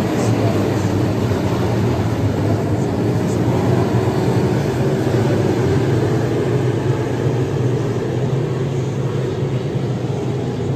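A field of USRA limited modified dirt-track race cars running at racing speed, their V8 engines blending into a loud, steady drone.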